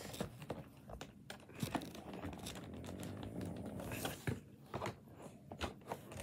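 Scissors snipping at plastic ties and packaging on a cardboard toy box, with crinkling and rustling and scattered sharp clicks; a denser crackling stretch comes midway.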